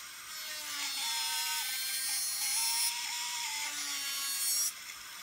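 Electric manicure nail drill (e-file) running at full speed, its bit grinding gel polish off a fingernail: a whine with a hissing scrape, wavering in pitch as the bit works the nail. It stops briefly about four and a half seconds in.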